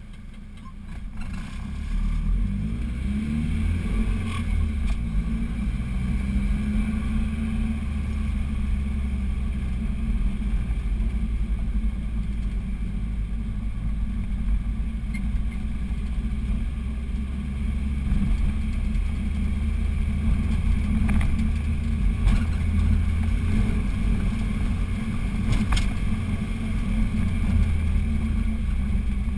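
Vehicle engine droning under load as it climbs, heard from inside the cabin together with road noise; it gets louder about two seconds in and then runs steadily, with a few faint clicks.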